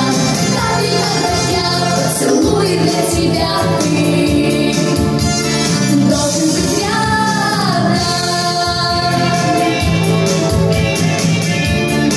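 A girl singing a children's pop song into a microphone over backing music with a steady beat, heard through a hall's sound system.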